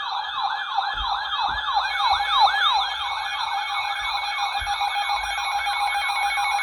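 Electronic yelping siren-type alert tone, about three rising-and-falling sweeps a second over a steady high tone. It is a weather radio's alarm signalling an incoming severe thunderstorm warning.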